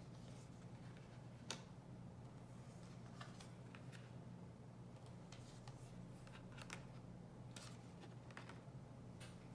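Tarot cards being dealt off the deck and laid down one at a time on a cloth-covered table: faint, scattered slides and soft taps, the sharpest about a second and a half in, over a low steady hum.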